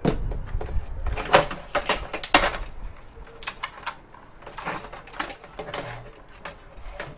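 Irregular clicks, knocks and light metallic clatter of a tape drive's sheet-metal mount and cover plate being handled and lifted. The knocks come in two busy runs, about a second in and again around five seconds.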